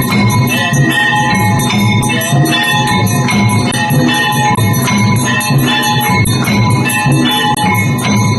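Aarti music with bells ringing continuously over a steady rhythmic beat.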